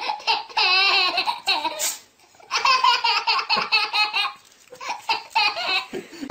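A baby laughing hard, high-pitched belly laughs coming in long bursts separated by short pauses for breath.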